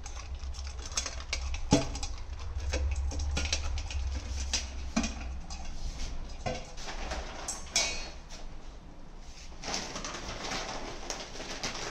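A puppy eating dry kibble from a stainless steel bowl: irregular crunching and clicks of pellets and teeth against the metal.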